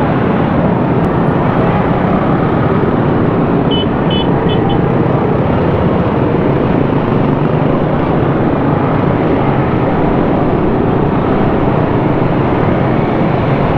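Many motorcycle engines running together in slow, packed traffic, a loud steady mix. About four seconds in, three or four quick high beeps, like a horn being tapped.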